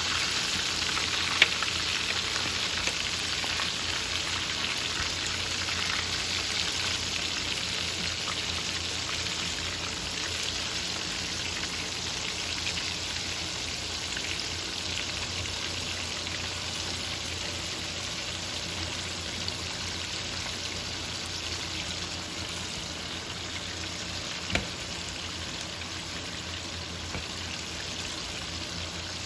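Breaded chicken wings sizzling steadily as they pan-fry in hot oil in a skillet, the sizzle easing slowly. Two sharp clicks, one near the start and one near the end.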